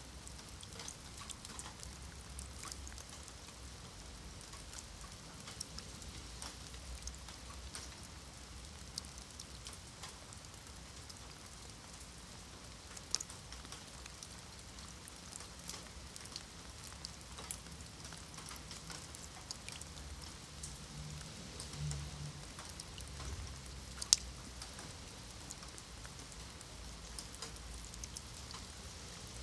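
Rain falling on wet stone paving and shallow puddles: a steady patter with many individual drops ticking sharply, one much sharper tick about four-fifths of the way through. A faint low rumble swells briefly past the middle.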